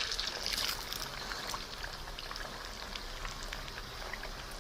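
Egg-coated chicken pieces deep-frying in oil on a low flame: a steady sizzle with scattered small pops and crackles, a little louder in the first second.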